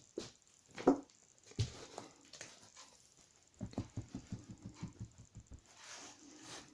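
A resting dog making small movement noises: a few separate soft knocks, then a run of quick light taps, then a brief soft rustle near the end.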